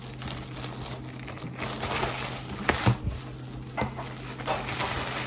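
Thin plastic packaging bags crinkling and rustling as hands handle them and pull them open, with scattered sharp crackles at irregular moments.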